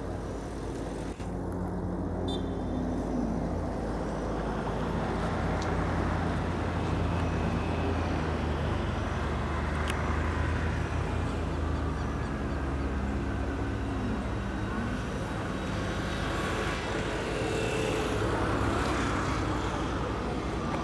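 Cessna Citation CJ4's twin Williams FJ44 turbofan engines on landing approach: a steady rumble and hiss with slowly gliding tones, growing a little louder.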